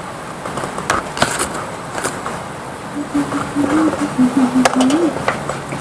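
Scattered clicks and knocks of a small metal clamp-type camera mount being adjusted by hand, with a person humming softly for a couple of seconds about halfway through.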